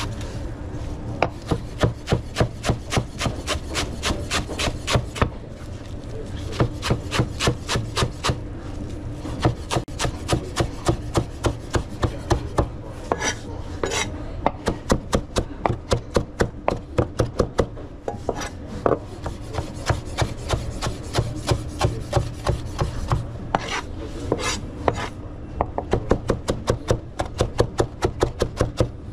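Rapid, evenly spaced knocking from a kitchen utensil working against a bowl or board, about five or six strokes a second, in runs of a few seconds with short pauses between them, over a steady low hum.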